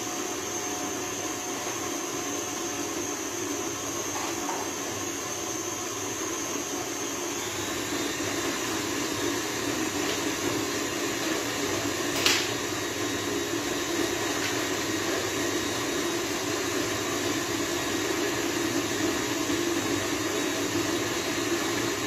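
Electric stand mixer running steadily, creaming butter and sugar in its metal bowl, a little louder from about eight seconds in. A single sharp knock about twelve seconds in.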